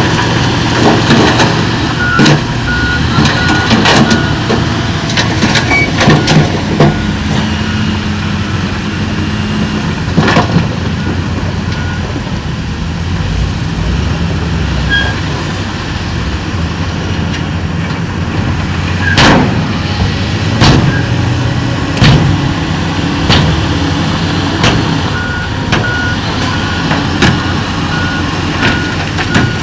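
Bulldozer and dump truck diesel engines running, with a reversing alarm beeping a couple of seconds in and again near the end, and scattered sharp knocks and clanks of rock.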